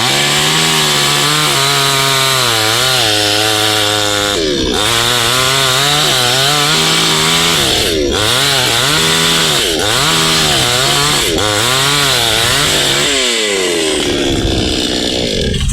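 Two-stroke chainsaw cutting wood at high revs, its engine pitch dipping and recovering again and again as the chain bites, then falling away near the end.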